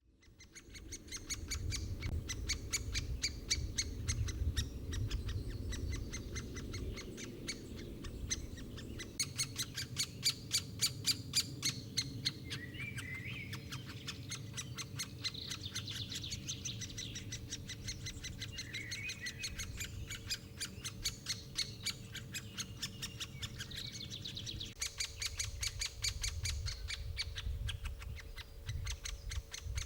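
Birds calling in a woodland, with a rapid, continuous series of sharp ticks and whistled song phrases in the middle stretch, over a faint steady hum.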